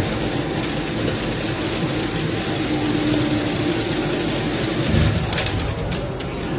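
CNC machine running steadily while machining, a continuous mechanical whir with a high hiss over a low hum.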